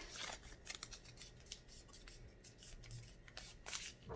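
Faint rustling and crinkling of a sheet of printer paper being folded and its crease pressed flat by hand, a string of short scratchy crackles.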